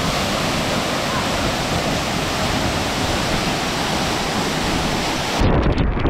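Waterfall: a loud, steady rush of falling water. About five seconds in it cuts abruptly to a deeper, buffeting rush of spray pounding close to the microphone under the falls.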